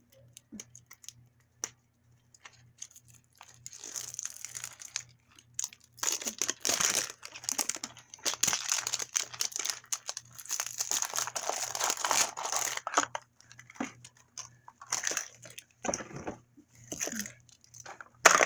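Toy packaging being torn open and crinkled by hand: a few light clicks at first, then several seconds of steady crackling and rustling, and shorter bursts of it near the end.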